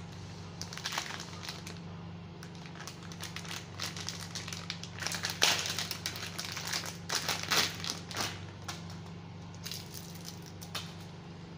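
Plastic packaging crinkling and rustling as a switch-and-socket plate is unwrapped by hand, loudest around the middle, over a steady low hum.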